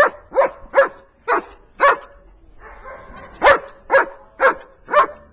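A dog barking in short, regular barks about two a second: a run of five, a pause of about a second and a half, then four more.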